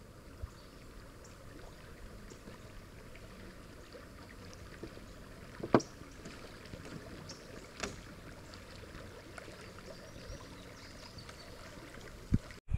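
Faint, steady wash of river water around a canoe, broken by a few light knocks. The sharpest knock comes about halfway through.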